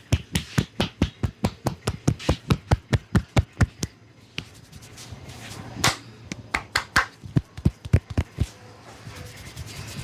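A barber's hands striking a person's body in rhythmic percussive massage strokes: a fast, even run of about five slaps a second, a brief pause, then a slower, uneven series of slaps that stops near the end.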